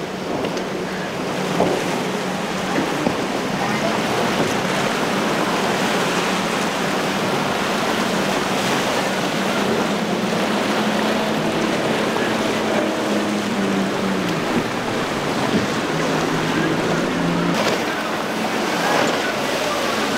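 Yamaha 250 outboard motor running at speed with a steady drone, over the rush of waves, wake spray and wind. The engine tone drops away about two-thirds of the way through.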